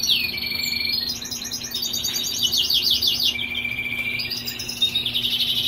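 European goldfinches singing: a continuous twitter of quick, high, down-slurred notes from more than one bird.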